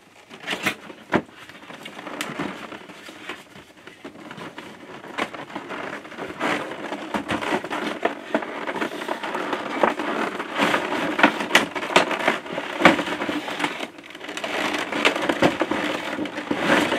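A cardboard box being opened and handled: the lid and flaps rub, and the clear plastic tray inside crackles, with many sharp clicks and crinkles throughout.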